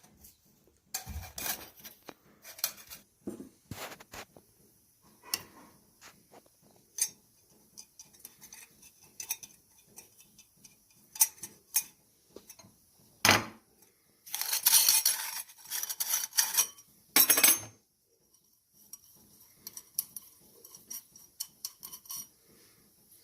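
Metal kitchen utensils clinking and knocking as they are handled, with a couple of seconds of scraping and rattling about two-thirds through.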